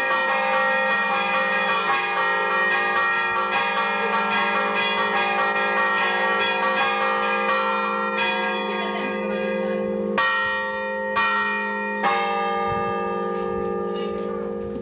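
Church bells ringing a fast festive peal, strokes close together and overlapping. Near the end the ringing thins to a few separate strokes about a second apart.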